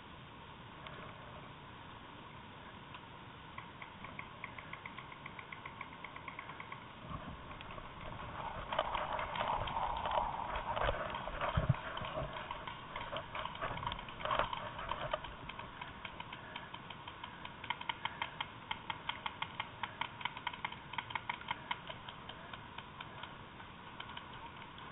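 Running footsteps crunching over forest-floor leaf litter and twigs, with denser rustling about a third of the way in, then an even beat of about three or four steps a second.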